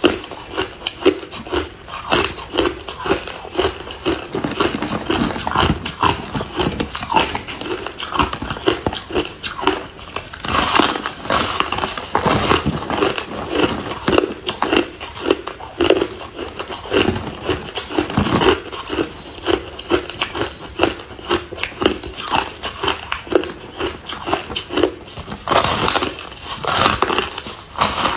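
Crushed ice being bitten and chewed: a dense, irregular run of crisp crunches and crackles, with no pause.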